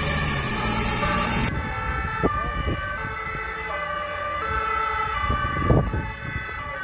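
Fire engines' two-tone German emergency siren (Martinshorn), switching back and forth between a high and a low pitch, over road traffic noise. The recording cuts abruptly about a second and a half in.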